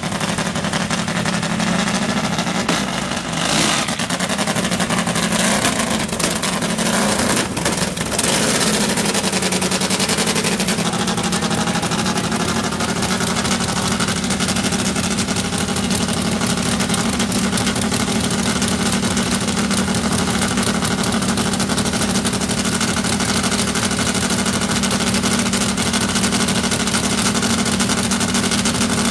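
Nitro-fuelled Harley V-twin drag bike engine running steadily with a rapid, popping beat. There are brief changes in the sound about four and eight seconds in.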